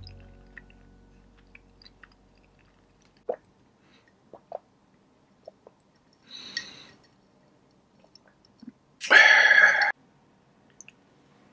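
Mouth and eating sounds at a table: a few small clicks and smacks, a short slurp from a glass jar about six seconds in, then a louder breathy rush lasting under a second near the end.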